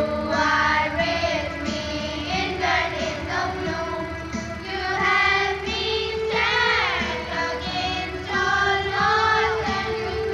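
A Christian prayer song: a high voice singing a devotional melody with wavering held notes over a steady instrumental backing.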